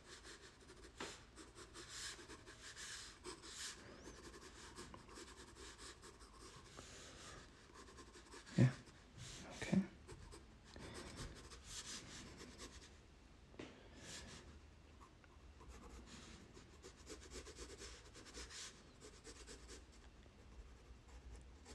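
4B graphite pencil sketching on sulphite drawing paper: faint, quick scratching strokes, with two short low thumps a little before halfway.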